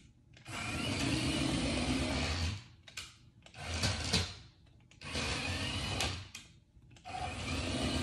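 Remote-control toy truck's small electric motor and gears whirring in four stop-start bursts as it is driven over a wooden floor.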